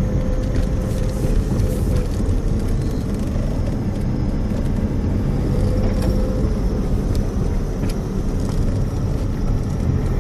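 Car driving along a rough, narrow paved road, heard from inside: a steady low rumble of tyres and engine with a faint steady hum and a few light clicks of rattle.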